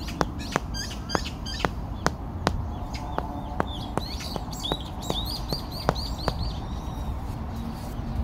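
Rubber mallet tapping bricks set on edge to level them, about two to three knocks a second, stopping about six seconds in. Birds chirp repeatedly in the background.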